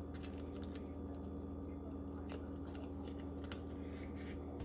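Faint scattered clicks and ticks, as of small handling noises, over a steady low hum.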